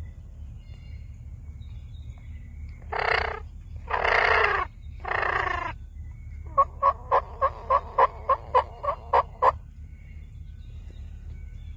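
Eastern wild turkey calls: three loud, raspy, rattling gobbles in quick succession, then a run of about eleven short, evenly spaced yelps.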